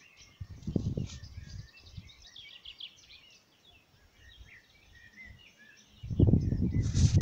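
Many songbirds singing in an evening chorus, a dense run of short chirps and trills. Low rumbling noise on the microphone comes about a second in and again, louder, from about six seconds in.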